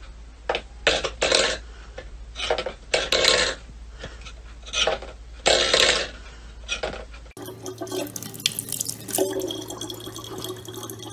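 A stainless steel pet bowl scraped and knocked about on a wooden floor by a cat's paw, in a series of short irregular scrapes. About seven seconds in, this gives way to a thin stream of tap water trickling into a plastic bottle.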